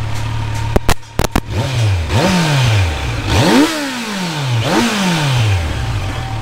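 Motorcycle engine on its all-stock exhaust idling, with a few sharp clicks about a second in, then blipped four times, each rev rising quickly and falling back to idle.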